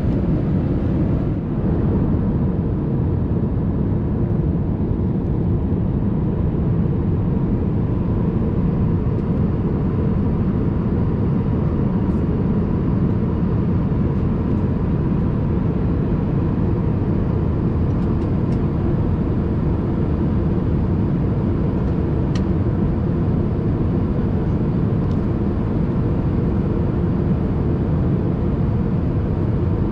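Steady low rumble of engines and rushing air heard inside the cabin of an Airbus A380-800, with a faint steady hum and a few light ticks.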